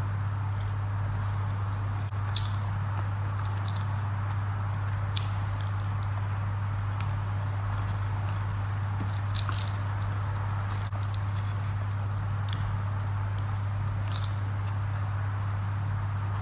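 Close-up eating sounds of a person chewing rice and fish curry and mixing it by hand, with scattered short clicks and squishing at irregular intervals, over a steady low hum.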